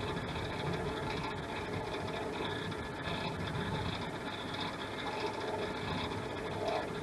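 SIP 01936 wood lathe running steadily while a drill bit bores into a spinning acrylic pen blank.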